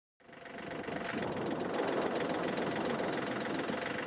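John Deere compact utility tractor's diesel engine idling steadily.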